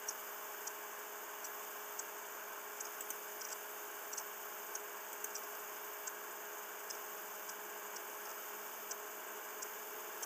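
Low, steady background hiss with a faint hum (room tone through the microphone), dotted with faint, short, irregular ticks.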